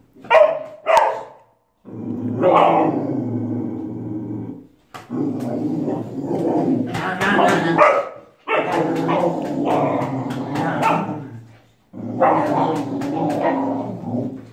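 A dog barks twice in quick succession, then vocalises in four long stretches of a few seconds each, its voice rising and falling and broken by short yips.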